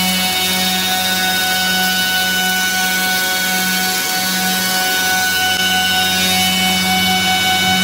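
Four-sided wood planer (moulder) running steadily as a weathered barn board feeds through: a loud, even machine drone with a low hum and a high whine from the spinning cutter heads.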